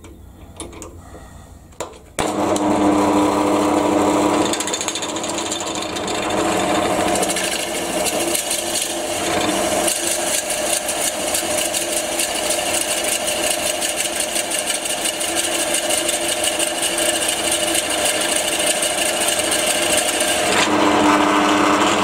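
Pillar drill switched on about two seconds in, then a large 36 mm drill bit boring into a wooden mill blank: a steady cutting noise over the motor's hum. The bit is a cheap one that is not centring. Near the end the bit is lifted out and the drill spins free.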